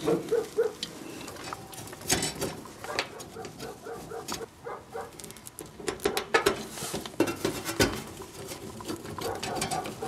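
Irregular clicks and scrapes of a screwdriver driving a screw into the sheet-metal box of a furnace fan and limit control switch, with hand handling noise on the metal.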